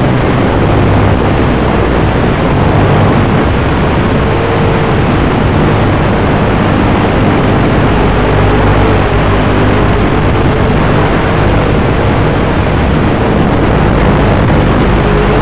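Syma X8C quadcopter's motors and propellers running in flight: a loud, steady, noisy drone with a faint tone that wavers up and down in pitch.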